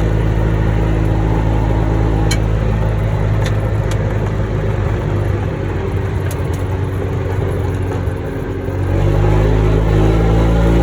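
A vehicle's engine running as it drives, easing off about halfway through and picking up again near the end, with a few light knocks from the ride.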